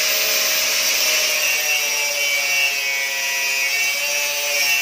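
Angle grinder cutting through metal pipe: a steady, high grinding hiss over the even whine of the motor.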